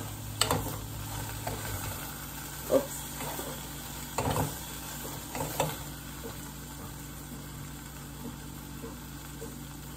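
Okra sizzling in hot oil in a steel pot while a spoon stirs it, with a few sharp clinks of the spoon against the pot.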